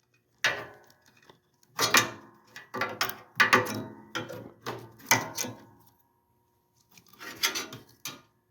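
Clicking, rattling and knocking of plastic and metal parts as a wire harness plug is fitted onto a washing machine's transmission connector, in clusters with a pause of about a second near the end.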